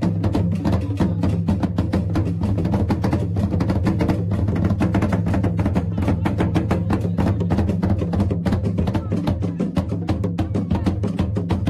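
Traditional Ghanaian drumming: large standing barrel drums with other percussion keeping up a fast, dense rhythm without a break.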